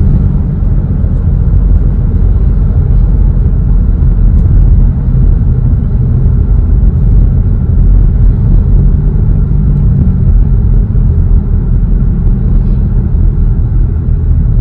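A 2021 VW Tiguan fitted with a B2B Fab Tiggypipe (Venturi) exhaust, cruising at about 30 mph. The exhaust gives a steady low rumble with no drone, mixed with road noise.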